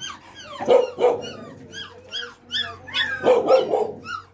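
Dogs barking and yipping: a quick run of short, high yelps, with louder barks about a second in and again around three seconds in.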